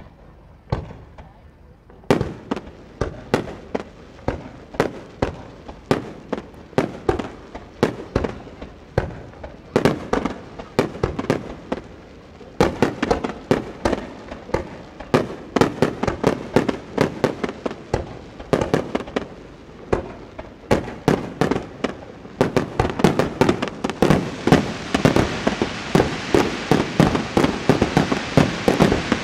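Aerial fireworks shells bursting over a harbour in a rapid, steady barrage, several bangs a second, starting about two seconds in and growing denser. A crackling hiss builds up under the bangs near the end.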